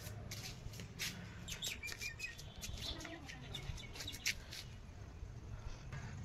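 Scattered short bird chirps over a low background rumble.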